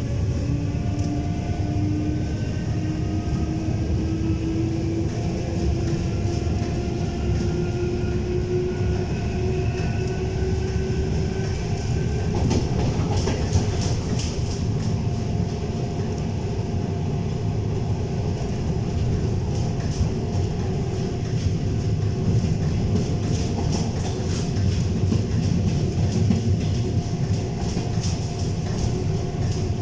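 EP3D electric multiple unit running on the rails. There is a steady low rumble, and a whine rises slowly in pitch through the first half as the train gathers speed. From about halfway on, the wheels clatter with repeated clicks over the rail joints.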